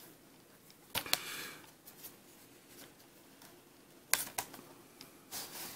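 A plastic Blu-ray case being slid out of its cardboard slipcover and handled: sharp clicks about a second in and again around four seconds in, each with a short scraping rustle, and another rustle near the end.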